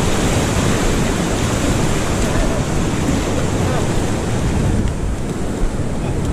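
Surf breaking and washing up the beach, with wind buffeting the microphone: a steady, loud rush.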